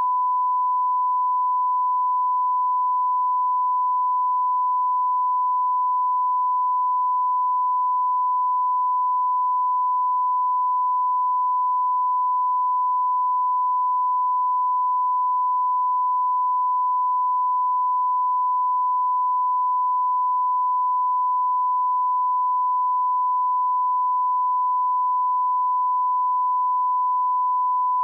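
Steady 1 kHz line-up test tone, the reference tone that goes with colour bars at the head of a broadcast programme: one pure, unbroken beep at constant level.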